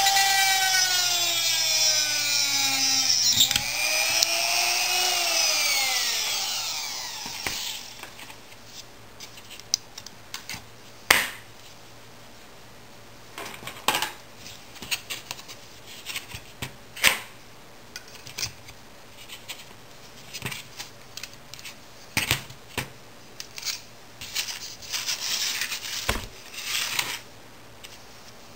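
Handheld Dremel rotary tool with a cut-off wheel whining at high speed as it cuts through a thin steel wire; the pitch sags and dips under the load, then falls steadily as the tool is switched off and spins down, dying out about seven seconds in. After that come light clicks and taps of small metal parts being handled.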